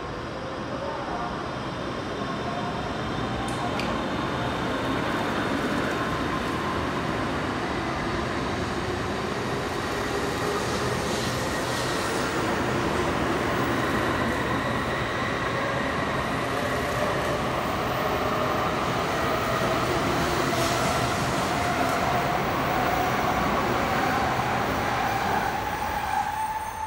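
N700S Shinkansen train pulling away and accelerating. Its traction motor whine rises slowly and steadily in pitch over a steady rumble of wheels and rushing air. Right at the end the sound drops away as the last car passes.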